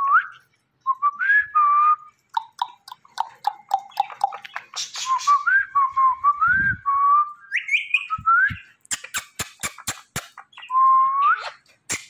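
Indian ringneck parakeet whistling: a string of short whistles, many sliding upward in pitch, with a quick run of sharp clicks about nine seconds in.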